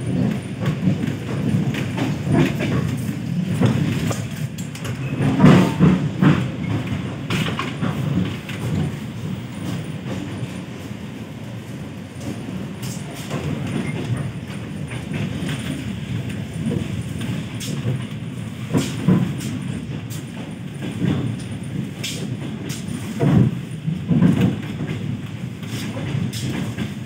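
ED4M electric commuter train in motion, heard from inside the carriage: a steady low running noise from wheels on rails, broken by irregular knocks and rattles, with louder clusters about five seconds in and again past the middle.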